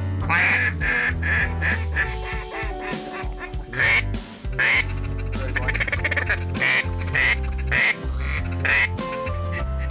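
Duck quacks repeated throughout, several in quick succession near the middle, over background music with a steady bass.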